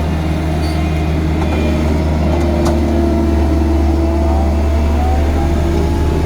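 Heavy earthmoving machine's engine running steadily with a deep, even hum.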